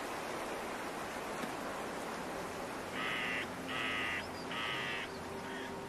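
A bird calling harshly: three loud, rasping calls of about half a second each, starting about halfway through, then a few shorter, fainter ones, over a steady background hiss.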